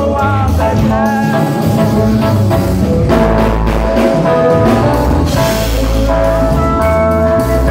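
Live gospel band playing a revival worship song: drum kit, congas and electronic keyboards, with a man singing into a microphone over the bass-heavy groove.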